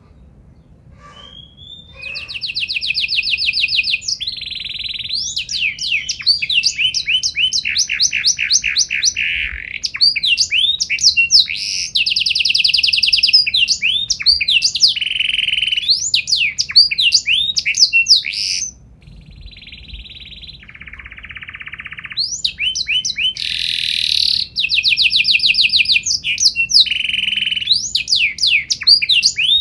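Domestic canary singing a long, varied song of fast trills, rolls of rapid repeated notes and sweeping whistled notes. It starts about two seconds in and softens briefly past the middle before picking up again.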